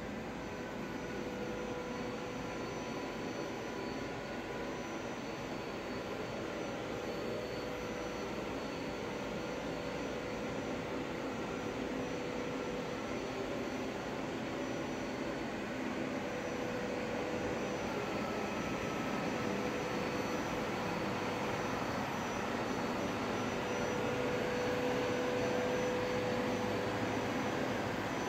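Distant jet aircraft passing: a steady drone with a faint whine that slowly dips and rises in pitch, growing gradually louder toward the end.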